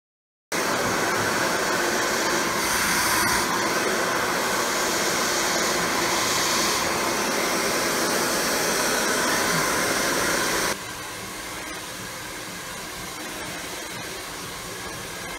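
Handheld hair dryer blowing steadily. About eleven seconds in the sound drops to a quieter steady hiss.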